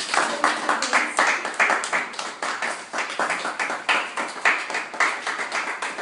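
A small group of people clapping their hands, a steady run of quick, overlapping claps.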